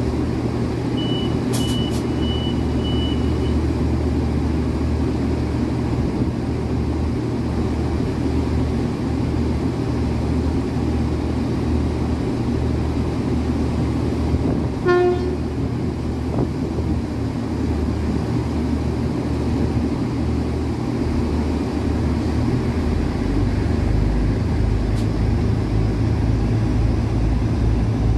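Irish Rail Class 22000 diesel multiple unit's engines idling with a steady drone. Four short high door-warning beeps sound in the first few seconds as the doors close, and a brief horn toot comes about halfway through. Near the end the engine note turns to a throbbing pulse and grows a little louder as the train starts to pull away.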